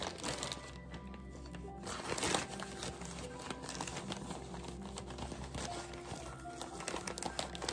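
Plastic bag of powdered sugar crinkling as it is handled and pulled open, over background music.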